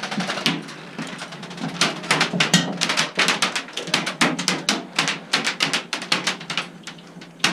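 Dense, irregular clicking and crackling: several sharp clicks a second, coming in uneven runs.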